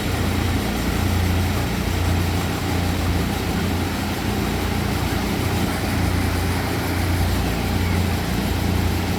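Large ventilation fans of an environmentally controlled broiler house running steadily: a low hum under a broad rush of moving air.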